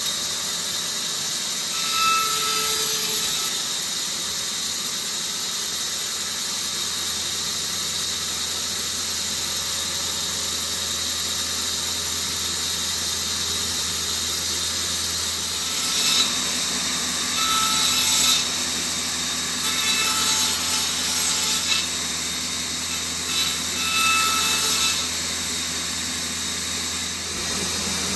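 Bandsaw running steadily, its blade rasping through a thin wooden pole in several short cuts as the end is shaved to a stake point. One cut comes about two seconds in, and a cluster of cuts follows in the second half.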